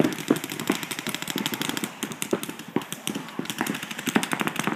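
Paintball markers firing in rapid strings of sharp pops, densest near the end.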